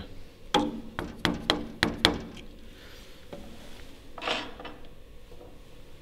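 About five quick taps of a hammer on a small screwdriver, one after another, driving its tip into the joint between the handwheel flange and the housing of a Schiebel CM03 multi-turn actuator to prise the flange loose.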